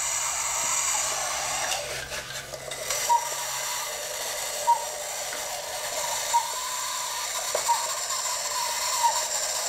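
Cuckoo clock movement clicking and whirring as its weight chain is pulled through the sprocket, with a sharper click every second or two over a steady rattle. The movement sounds dry.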